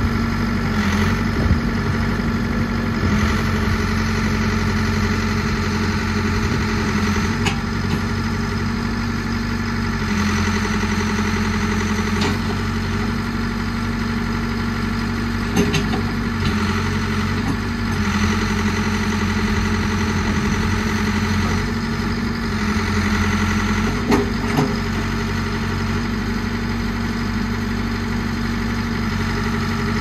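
Caterpillar 420D backhoe loader's diesel engine running steadily while the backhoe arm and bucket are worked, with a few short knocks along the way.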